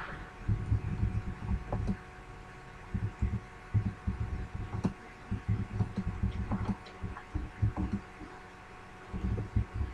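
Computer keyboard keystrokes picked up as dull, irregular low thumps, a few per second in short runs with brief pauses, over a steady faint electrical hum.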